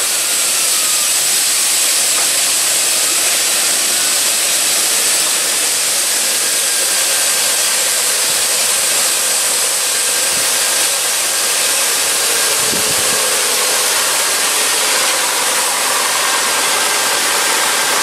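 Genesis G70 running in gear on a lift with its wheels spinning freely at about 80 km/h while the steering is turned right, a loud steady rushing noise from the engine and spinning drivetrain. The test is meant to bring out a clunking, grinding noise from the right front wheel area, but the running noise is too loud for it to stand out.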